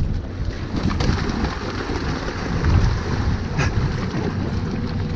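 Wind buffeting the microphone on a boat at sea, an uneven low rumble mixed with the wash of water. There is one short knock about three and a half seconds in.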